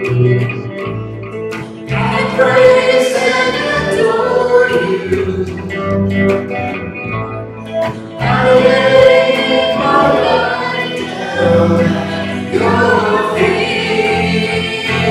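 Worship song performed live: voices singing together over a strummed hollow-body electric guitar.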